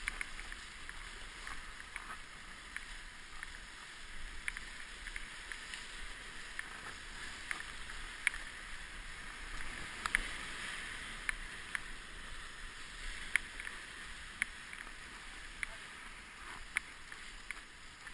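Whitewater rapids rushing steadily around an inflatable raft, with short, sharp splashes about once or twice a second as the crew's paddles dig into the water.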